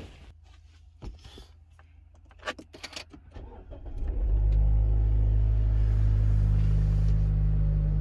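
A few faint clicks, then about four seconds in a Mazda car's engine is started with the push-button starter, catching almost at once and settling into a steady idle.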